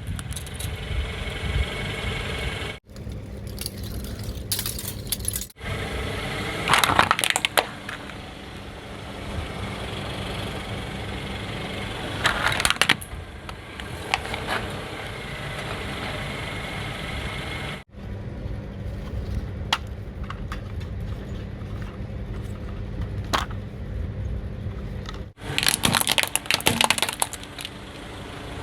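Car engine idling with a steady low hum while a tyre rolls over brittle objects, crushing them with bursts of crunching and cracking, loudest about seven seconds in, around twelve seconds in and near the end.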